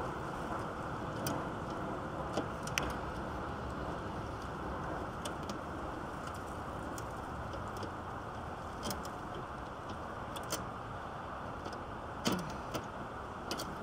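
Scattered light metallic clicks and clinks, one every second or so, from hands working parts loose deep inside a car's engine bay, over a steady low rushing noise.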